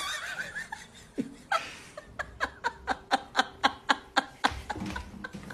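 A person laughing: a high, wavering laugh at first, then a run of short, evenly spaced bursts of laughter, about four a second, from about two seconds in.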